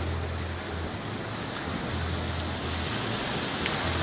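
Steady surf washing onto the beach, with wind buffeting the microphone in uneven gusts. A short tick near the end.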